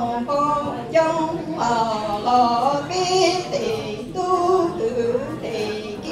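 A woman singing Hmong lug txaj unaccompanied, in phrases of long held notes whose pitch wavers and slides.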